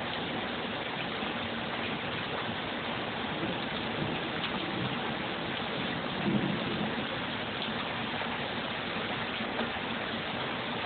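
Steady rain falling during a thunderstorm, an even hiss with a brief low rumble about six seconds in.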